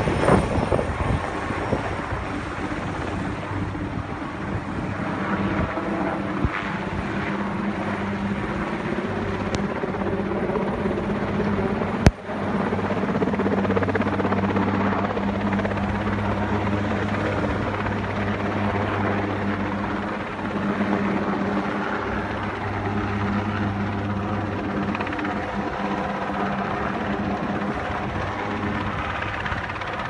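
Sikorsky S-58ET turbine helicopter running steadily overhead, its rotor and engines holding a low, even drone while it carries an air conditioning unit on a sling line. A single sharp click about twelve seconds in.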